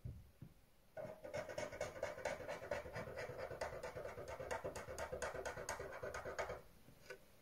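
Blue felt-tip marker scratching across paper in quick back-and-forth strokes as it draws a zigzag line, a fast, even rhythm that starts about a second in and stops shortly before the end. A soft thump comes right at the start.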